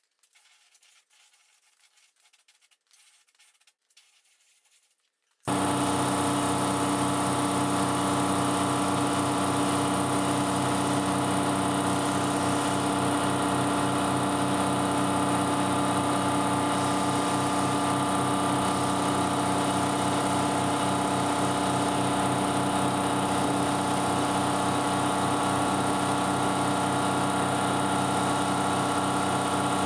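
Faint small handling sounds, then about five seconds in a loud, steady mechanical drone starts suddenly. It is a constant hum of several fixed tones with hiss over it, like a motor running, and holds unchanged.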